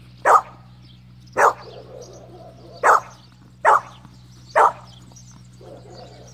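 Australian cattle dog barking five short, sharp single barks at uneven intervals, demand barking at a horse eating from its feed bucket because the dog wants the feed.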